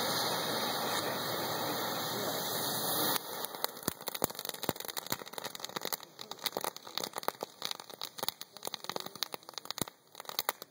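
TNT Lightning Flash fountain firework hissing loudly as it sprays sparks. About three seconds in, the hiss cuts off and gives way to rapid crackling pops that thin out toward the end.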